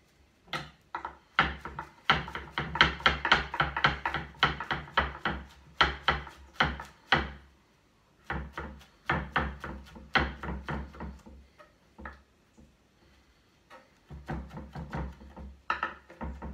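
Chef's knife chopping fresh basil leaves on a cutting board: quick, rapid knocks of the blade striking the board, in runs broken by a short pause a little past the middle and a slower patch before picking up again near the end.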